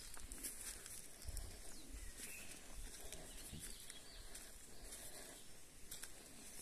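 Footsteps crunching on dry fallen leaves on a forest trail, in short irregular crackles, with faint bird calls behind.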